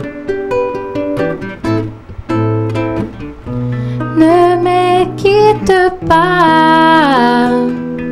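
Acoustic guitar picking the slow closing bars of a song, single notes and chords, joined about four seconds in by a woman singing long held notes, the last of which slides down near the end.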